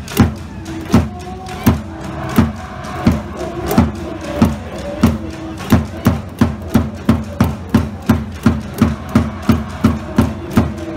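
A cheering-section drum beaten in a steady rhythm of deep thumps, about one and a half beats a second at first, speeding up to two or three beats a second toward the end.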